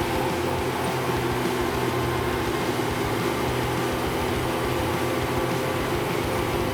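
Logging truck engine running steadily, a low even drone that neither rises nor falls.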